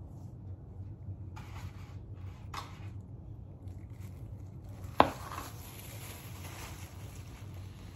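A plastic mixing bowl set down on a hard countertop with one sharp knock about five seconds in, among faint rustling of gloved hands working wet hair. A steady low hum runs underneath.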